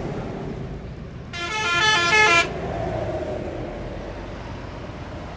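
Truck air horn sounding once for about a second, a loud blast of several tones that changes pitch in quick steps, over the steady low rumble of a truck's engine.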